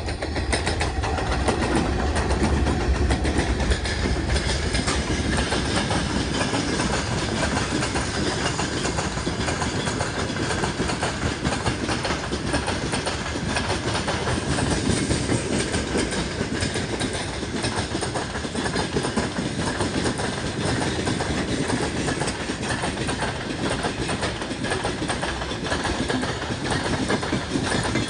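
A freight train hauled by two TE33AC diesel-electric locomotives passing. A deep engine rumble is strongest in the first few seconds, then the wagons roll by with a steady clatter of wheels over the rails.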